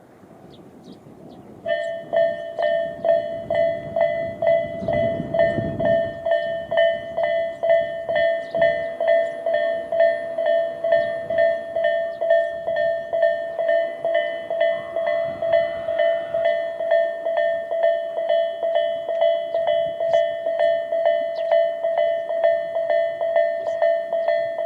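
Japanese railway level-crossing warning bell of the Tobu 'sound A' type, switching on about two seconds in and ringing a steady electronic ding about two and a half times a second, the signal that a train is approaching and the barriers are coming down.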